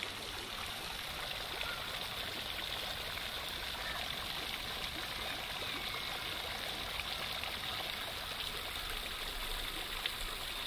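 Fountain jets splashing back down into a stone basin of water: a steady, even rush of falling water.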